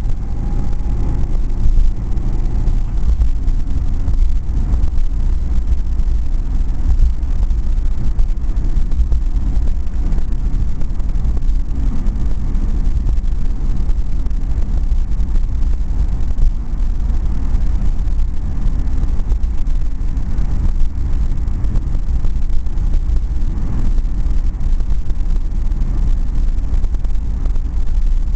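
Inside the cabin of a Lada 2104 cruising along a multi-lane road: a steady low rumble of engine and road noise.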